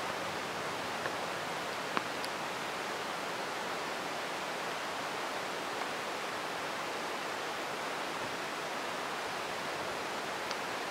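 Heavy rain pouring down steadily, a dense even hiss. A few faint sharp ticks sound through it, the clearest about two seconds in.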